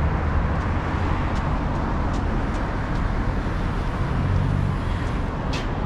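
Steady road traffic noise from congested cars, with a low engine hum swelling about four seconds in.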